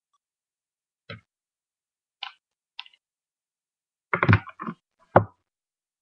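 Small makeup items handled and set down on a hard surface: a few short knocks and clicks, the loudest a cluster of knocks about four seconds in and a sharp knock just after five seconds.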